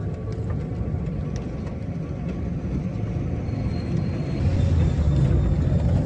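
Car driving on a road, heard from inside the cabin: a steady low rumble of engine and tyres that grows a little louder in the last couple of seconds.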